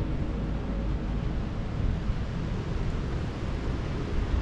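Wind buffeting the microphone: a low, uneven rush of noise that flickers in loudness.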